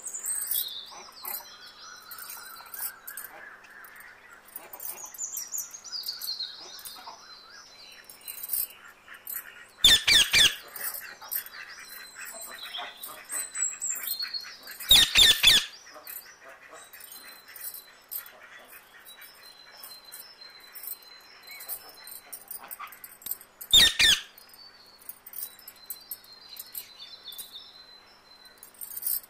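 Birds chirping and whistling in the background, broken three times by a short clatter of several sharp clinks as small cups and tumblers are handled and set down.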